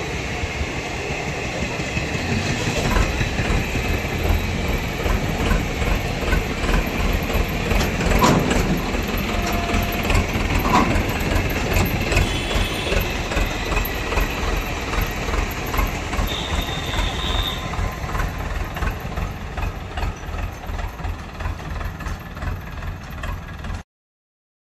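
Indian Railways passenger coaches rolling past, their wheels clattering over the rail joints in a steady rhythm of about one and a half beats a second. The sound cuts off suddenly near the end.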